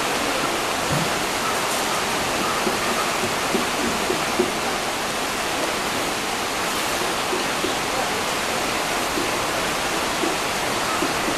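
Steady rush of a shallow, fast-flowing river running over rocks.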